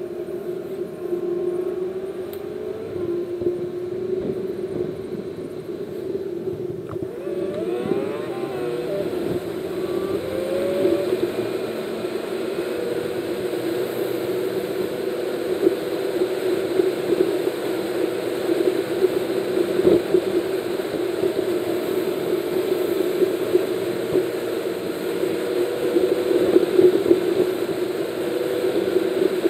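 A car being driven, heard from inside the cabin: a steady drone of engine and tyre noise. Between about 8 and 11 seconds in, a rising whine comes in as the car speeds up.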